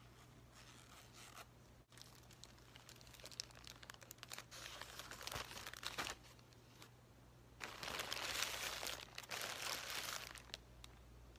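Thin plastic shopping bag crinkling as it is handled, in two stretches of rustling with a pause of a second or two between them.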